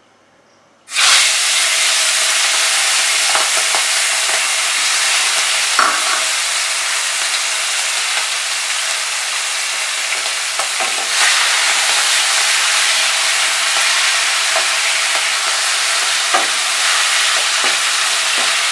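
Prawns frying in hot mustard oil: a loud, steady sizzle that starts suddenly about a second in as they go into the pan. A few light knocks of a spatula stirring them come through.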